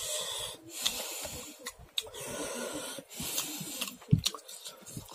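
Close-up eating sounds: a man chewing a raw green chili and mouthfuls of dal rice with short crunches and wet mouth clicks, over hissing, wheezy breaths. A single low thump about four seconds in as his hand mixes rice on the steel plate.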